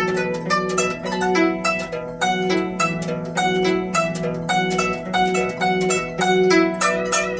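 Solo guzheng (Chinese zither) playing a fast passage: quick plucked notes over a low note that is rapidly and repeatedly re-plucked, at a steady, lively level.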